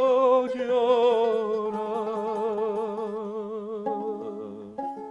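A man sings one long held note with wide vibrato, the pitch sagging slightly as it fades. Near the end, a few guitar notes are plucked under it.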